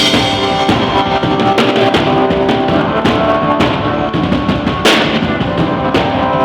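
Live band playing with a drum kit and sustained keyboard or guitar chords, a cymbal crash about five seconds in.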